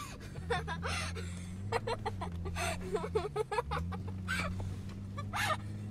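Toyota 4x4's engine heard from inside the cabin while dune driving, its note rising and falling several times as the driver works it over the sand. Short, high-pitched excited vocal sounds and light knocks come over it.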